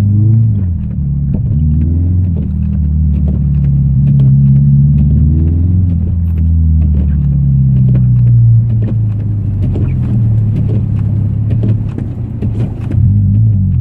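Subaru Forester's flat-four boxer engine revving up and falling back several times as the car is driven in snow, with scattered light crackles over it in the second half.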